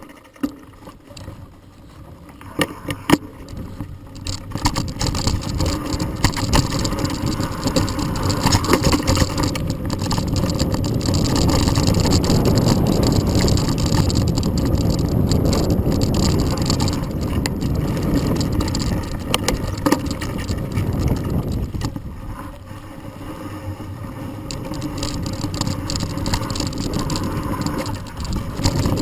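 Handlebar-camera ride noise from a Specialized Rockhopper Pro mountain bike descending a dirt singletrack: the tyres rumble over the dirt and the bike rattles. It starts fairly quiet with a few sharp clicks, grows much louder over the first several seconds as speed builds, and eases off for a couple of seconds about two-thirds of the way through before picking up again.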